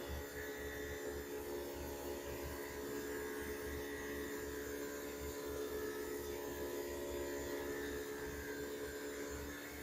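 Steady machine hum with several held tones and a low rumble, unchanging throughout.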